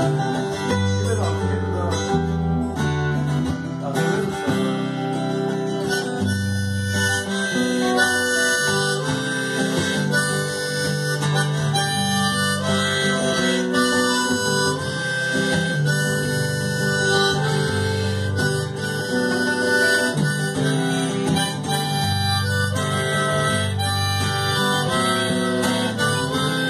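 A harmonica played with cupped hands into a vocal microphone over two strummed acoustic guitars, in a live acoustic instrumental passage with no singing.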